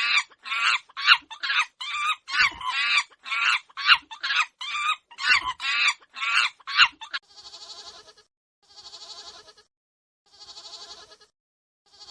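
Farm animal calls: a quick run of about fifteen short, pitched calls, then four drawn-out, wavering bleats spaced about a second and a half apart.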